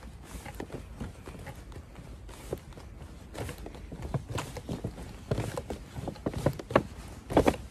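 Footsteps of a person walking on pavement, roughly two a second, mixed with rustling and knocking from a paper shopping bag with rope handles swinging against a coat.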